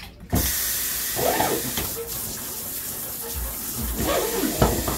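Kitchen faucet turned on about a third of a second in, water running steadily into a stainless-steel sink, with a few knocks of dishes handled in the sink.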